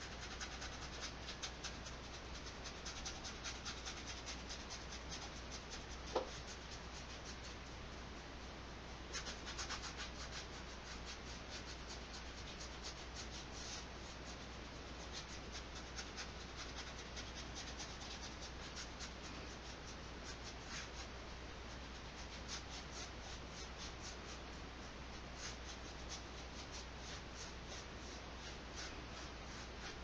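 Flat paintbrush scrubbing acrylic paint onto a textured canvas: a faint, dry scratching in quick back-and-forth strokes, with one short click about six seconds in.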